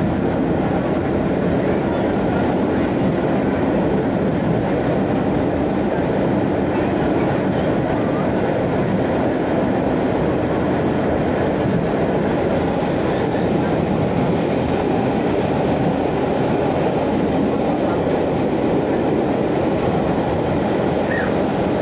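Vintage New York City subway train running at speed, heard from inside the car: a steady, unbroken rumble of wheels on rail and the rattling car.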